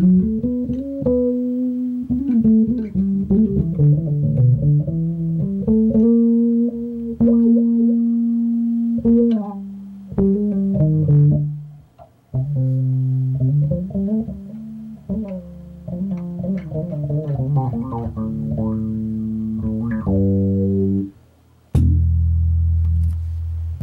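Fender Precision Bass played through a Cry Baby bass wah into an Ampeg SVT-CL 300-watt tube head and two Ampeg 4x10 cabinets: a funky line of plucked notes and slides with the wah working the upper tones. Near the end it stops briefly, then a loud low note rings out.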